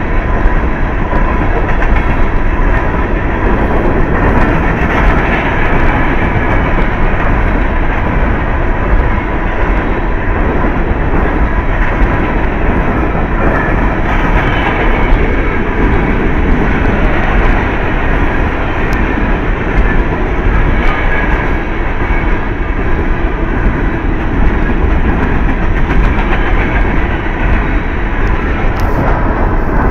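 Empty coal hopper cars of a Union Pacific coal train rolling past at speed: a loud, steady rumble and rattle of steel wheels on the rails.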